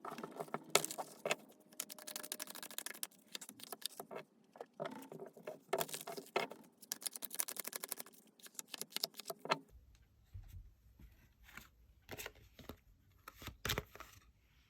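Tarot cards being shuffled and handled: a dense run of quick clicks, rattles and rustles that thins out to scattered clicks over a low hum from about ten seconds in.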